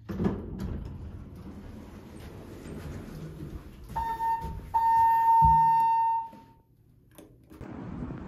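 An electronic beep: a short steady tone, then after a brief break a longer one of about a second and a half, over handling and rustling noise with a low thud.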